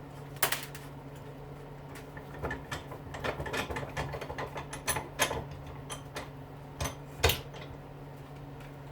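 Small metal tool working at an eyelet clip on a dishwasher motor's shaft: a run of quick metallic clicks and clinks, with a few sharper knocks, over a steady low hum.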